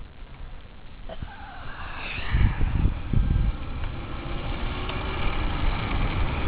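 Razor E300 electric scooter's chain-driven motor running as it approaches, growing louder from about a second and a half in.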